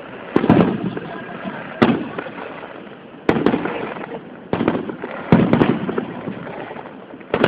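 Aerial fireworks bursting overhead: about seven sharp booms, some in quick pairs, each trailing off in a rolling echo, heard through a mobile phone's microphone.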